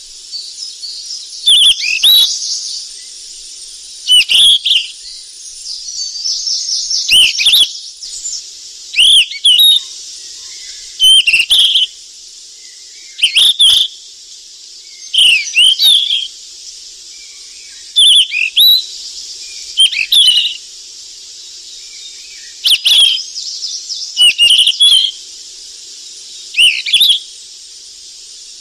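Golden flycatcher (sikatan emas) calling: a short, sharp whistled phrase repeated about every two seconds, with softer twittering between some phrases and a steady high hiss underneath.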